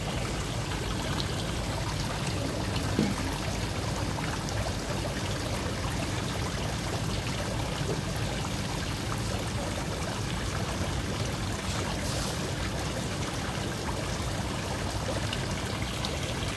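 Steady splashing and bubbling of water churning up at the surface of a koi pond.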